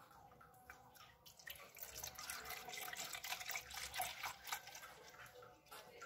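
UHT milk pouring in a stream from a carton into a plastic measuring jug. It is faint, starts about a second and a half in, is loudest in the middle and tails off near the end.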